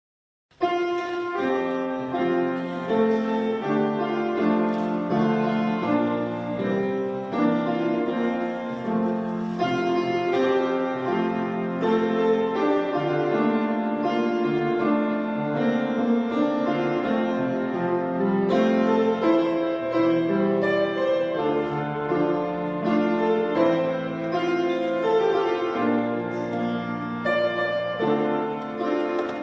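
Slow keyboard music in held chords, starting abruptly about half a second in.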